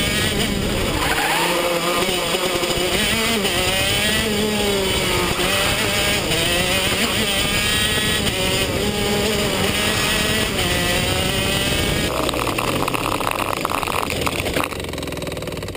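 Two-stroke engine of a 125cc KZ shifter kart heard onboard at race pace, its pitch rising and falling again and again through gearshifts and braking. About twelve seconds in it settles to a lower, steadier note as the kart slows off the track, and it dies away at the very end.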